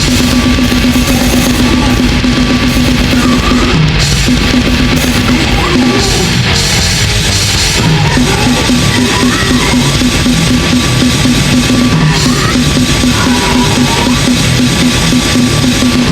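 Goregrind music: a drum kit played at blast-beat speed over distorted guitars, with the fast drum pulse breaking off briefly about four seconds in and again for a stretch around six to eight seconds in.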